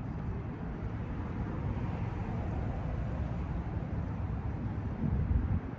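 Steady low outdoor rumble with no distinct events, swelling louder about five seconds in.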